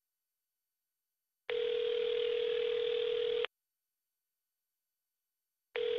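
Telephone ringback tone of an outgoing call, heard down the line: after a second and a half of silence, a steady low ring lasts about two seconds, pauses about two seconds, and starts again near the end. The call is ringing through and has not yet been answered.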